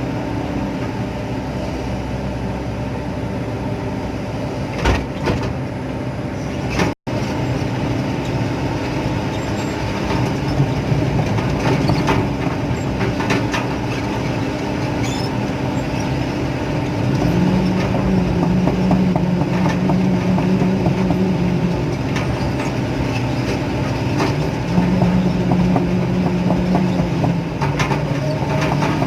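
Excavator's diesel engine running under working load, its pitch rising in steps a few times as the hydraulics are worked, with frequent knocks and clanks of steel parts. The sound drops out for an instant about seven seconds in.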